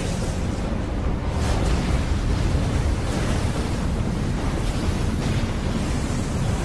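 Film sound design of a giant tsunami wave surging through city streets: loud, dense rushing and crashing water over a deep rumble, swelling in a couple of surges.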